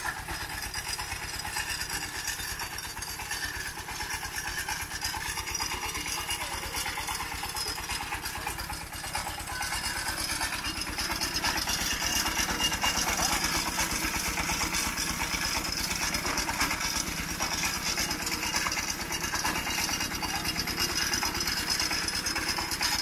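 A small engine running steadily with a rapid, even beat, growing louder about ten seconds in.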